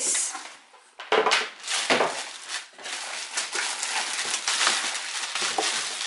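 Clear plastic packaging bag crinkling and crackling as it is handled and pulled off the machine, in irregular rustles with sharper crackles about a second and two seconds in.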